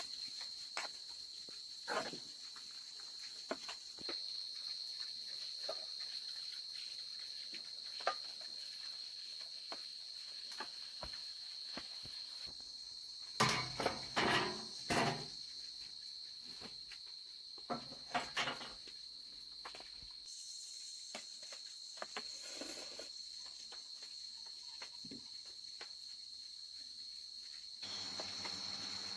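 Insects chirring in a steady high-pitched drone, with scattered small knocks and a short run of louder clattering knocks near the middle.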